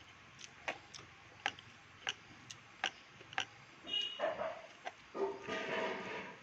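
Close-up mouth sounds of someone eating: chewing with sharp, wet lip-smacking clicks at a steady pace of about two a second. These are followed near the end by two longer, louder smacking or slurping sounds.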